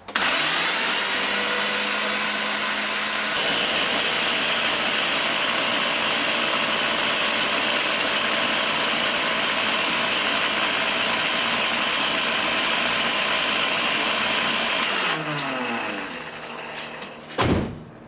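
Datsun 280ZX straight-six turned over on its starter motor with the spark plugs out, a steady, even whir with no compression strokes and no firing, spinning to build oil pressure through the freshly rebuilt head. About fifteen seconds in the starter is released and the engine winds down with falling pitch, followed by a single knock near the end.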